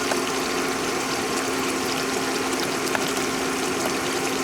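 Yellow squash and zucchini frying in a generous layer of oil in a cast iron skillet: a steady sizzle with scattered small pops, over a steady low hum.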